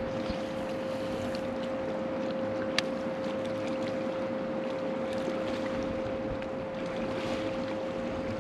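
Steady hum of a bass boat's electric trolling motor, a constant whine over wind noise on the microphone. A single sharp click about three seconds in.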